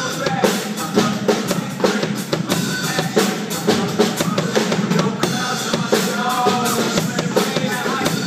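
Drum kit being played live: a quick, steady run of strikes on the drums and cymbals.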